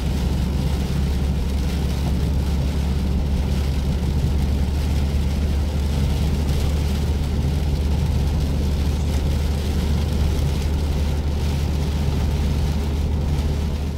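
Steady low drone inside a Jeep's cabin, driving at about 35 mph on a wet road in the rain: engine and tyre noise, even throughout.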